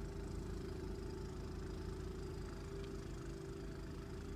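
Snowblower's small engine running steadily.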